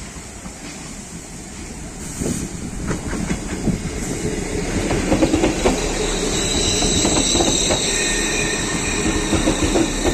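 Steam locomotive rolling slowly in tender-first, its wheels clacking over rail joints and growing louder as it comes nearer. From about halfway on, high steady squeals from the wheels on the rails sound over the clatter.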